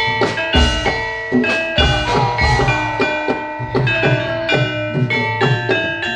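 Javanese gamelan music accompanying a horse dance: rapid strikes on ringing bronze metallophones over low hand-drum strokes.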